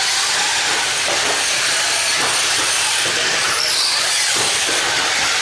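Radio-controlled race cars running on an indoor dirt track: a steady hiss, with a brief rising whine about three and a half seconds in.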